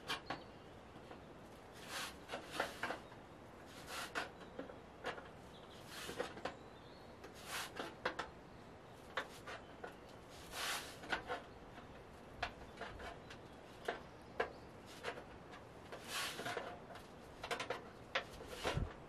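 A hand blade shaving or scraping a wooden pole: short scraping strokes repeated about once a second, some in quick pairs.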